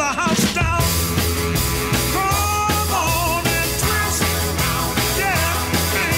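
Background rock music with a singing voice over a steady, pulsing bass beat.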